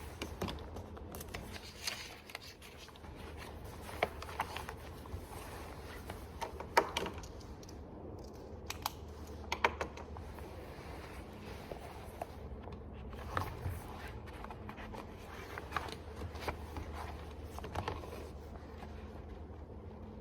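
Library room ambience: a steady low hum under scattered small clicks, taps and rustles of things being handled, the sharpest about seven and ten seconds in.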